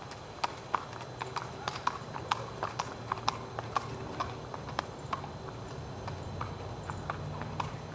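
Hoofbeats of two Connemara ponies walking on a paved road: an uneven clip-clop of sharp hoof strikes, about two to three a second.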